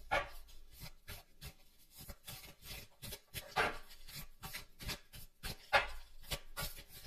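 Oracle cards being shuffled and handled by hand: irregular rubbing and riffling, with louder slaps just after the start, about three and a half seconds in and near six seconds.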